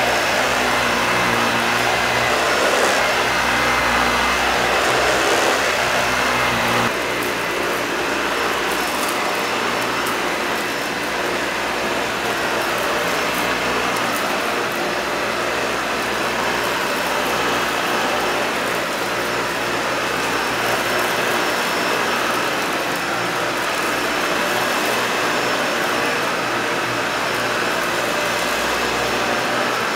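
Dyson Ball Animal upright vacuum cleaner running steadily as it is pushed over carpet, a loud even motor whine and hum. About seven seconds in the sound drops a little and loses some of its low hum.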